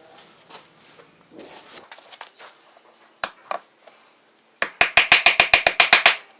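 Ball peen hammer tapping a mild steel leaf set in a wooden texturing jig: faint handling at first, two single blows a little past halfway, then a quick run of light rapid strikes, about ten a second, for about a second and a half near the end.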